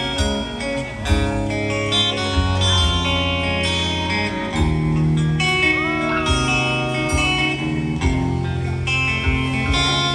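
Live band playing a guitar-led passage: electric guitar lines over bass and drums, with a bent guitar note about six seconds in.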